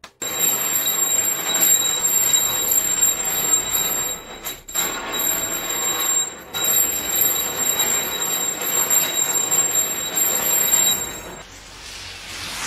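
Mechanical alarm clock bell ringing continuously, a dense high metallic ring with two brief breaks, which cuts off about a second before the end. A softer wash of a wave on sand follows.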